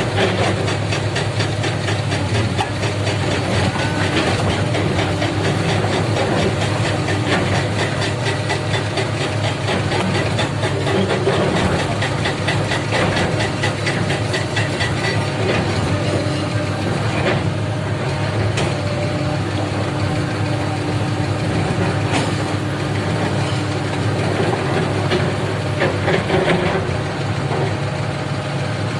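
Heavy diesel engine of a Komatsu PC300 hydraulic excavator running steadily at a low drone.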